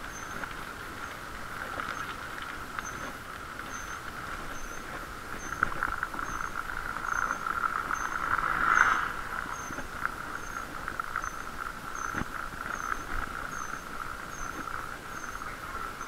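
Muffled bicycle riding noise heard through a camera's waterproof case: a steady rushing hiss that swells to its loudest about nine seconds in, with a faint high chirp repeating a little more than once a second.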